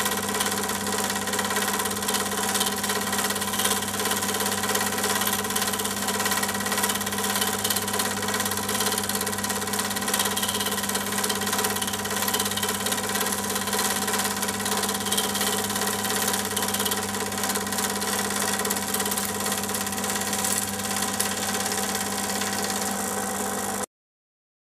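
Steady mechanical hum and whir of a film projector running, with a mains buzz. It stays unchanged across the picture cuts and cuts off suddenly near the end.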